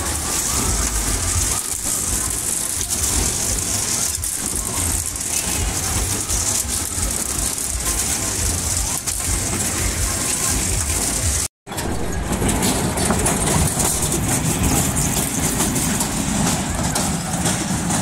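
Amusement park rides running: a steady engine-like rumble with a hiss of background noise. A sudden break to silence about eleven seconds in, after which the same kind of noise resumes.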